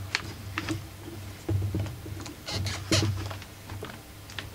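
Yellow plastic housing of a Kipor IG770 inverter generator being worked loose and lifted off its frame: irregular clicks, knocks and scrapes of plastic against metal and wiring, loudest about one and a half and three seconds in.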